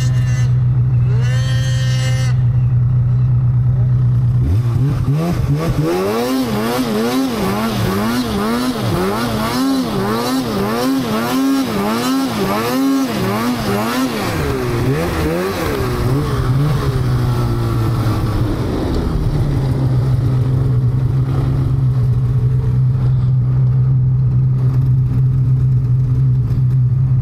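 A mountain snowmobile's two-stroke engine idles, then about four seconds in the throttle is worked in quick pulses. The revs rise and fall roughly once a second for about ten seconds as the sled pushes through soft snow. The engine then winds down and settles back to a steady idle.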